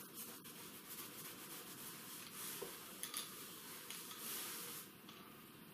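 Faint rubbing of a soft cloth buffing dried beeswax paint on a card, bringing up the colours, easing off near the end.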